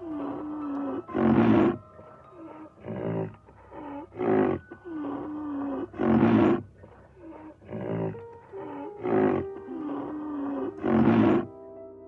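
A rhinoceros calling: a series of about seven loud, rough bellows, one every second and a half to two seconds, with quieter moaning tones that dip and rise between them.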